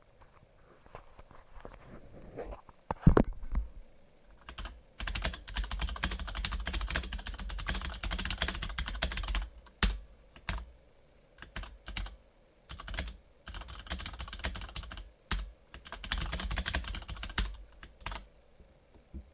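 Typing on a Logitech K845 mechanical keyboard with TTC Brown switches: two fast runs of dense key clicks with slower single keystrokes between, and a loud knock about three seconds in.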